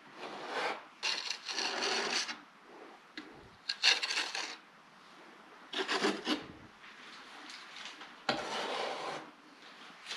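Wide metal drywall knife scraping across wet, thinned drywall texture compound in about five separate strokes a second or two apart, flattening the freshly applied texture.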